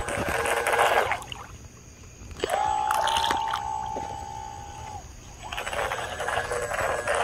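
Small electric RC boat running on a pool: water hiss and spray from the hull, and in the middle a steady high whine from its electric motor lasting about two and a half seconds, which starts and cuts off abruptly.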